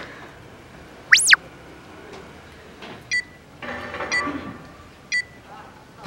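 Electronic sound effects: one fast electronic sweep that rises and falls about a second in, the loudest sound, then short high countdown-timer beeps once a second from about three seconds in.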